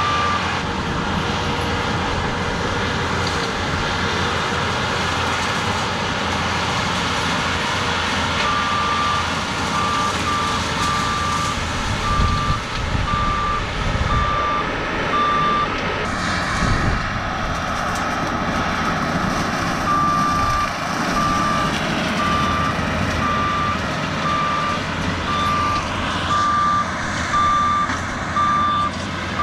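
John Deere 331G compact track loader with a Workhorse Pro forestry mulching attachment, its diesel engine and mulching head running steadily as it clears brush. Its backup alarm beeps about one and a half times a second while it reverses, in two spells: from about nine seconds in to about fifteen, and again from about twenty seconds in to the end.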